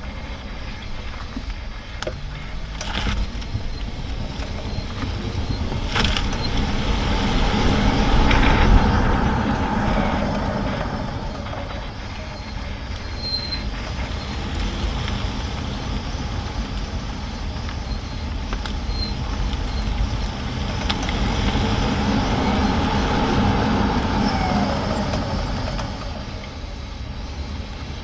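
Polestar 2 electric car on the move: steady road and tyre noise that swells and eases twice, with a few sharp clicks about two, three and six seconds in.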